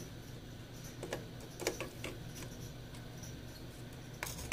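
A few light clicks and taps of small smartphone parts and a hand tool being handled on a workbench, the loudest click near the end, over a low steady hum.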